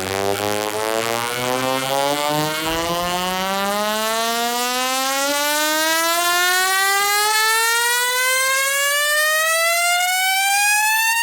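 A siren-like rising sweep with many overtones, climbing slowly and steadily in pitch: a build-up riser in a bass-boosted electronic remix, leading into the drop.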